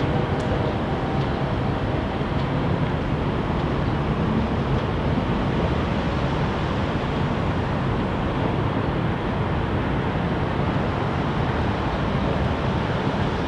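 Steady outdoor rumble of wind and city traffic, an even noise with no distinct events.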